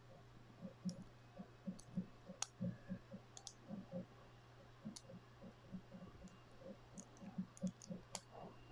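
Faint, irregular clicking and tapping of a steel hook pick working the pin stack of a Master Lock Excell padlock held under tension: pins being lifted and setting one by one during single-pin picking.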